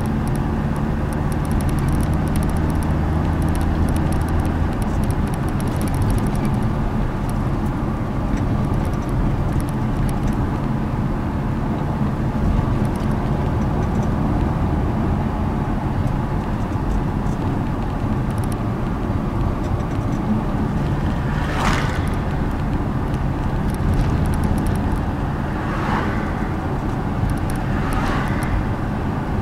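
Car driving along an open road, heard from inside the cabin: a steady rumble of engine and tyres on tarmac, with three short whooshes in the second half.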